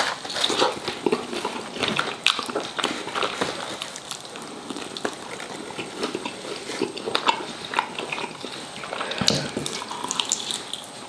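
Wet, close-up chewing and lip-smacking of a man eating bone-in chicken wings, with many short sticky clicks as he bites and pulls at the meat.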